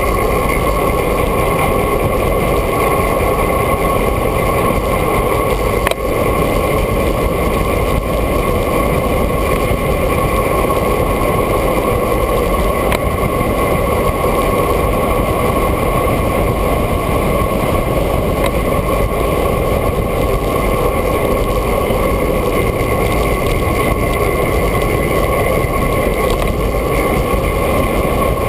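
Steady, loud wind rushing over a GoPro's microphone while riding a road bike on asphalt, with a faint click about six seconds in.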